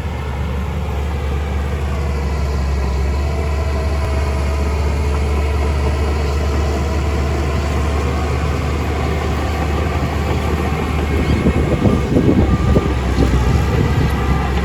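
Heavy diesel engine of earthmoving machinery running under steady load, a deep rumble with a steady drone; about eleven seconds in it grows louder and rougher for a couple of seconds.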